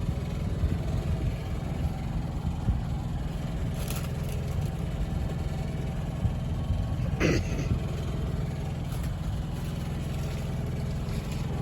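An engine running steadily with a low, even hum, with a brief clatter about seven seconds in.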